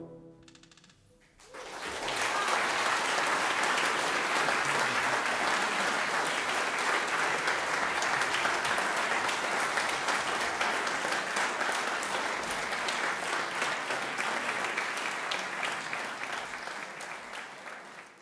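The orchestra's final chord rings away in the hall's reverberation, then the audience breaks into steady applause about a second and a half in, fading out near the end.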